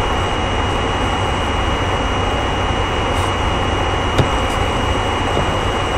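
Steady background hiss with a low hum and a thin high whine, unchanged throughout, broken only by a single click about four seconds in.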